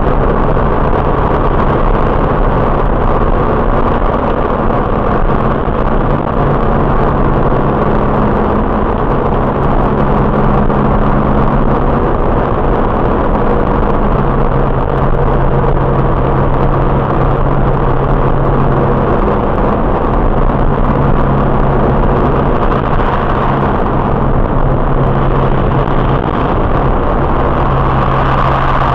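Car driving at a steady speed, heard from inside the cabin through a dashcam's built-in microphone: a steady engine hum under road and tyre noise.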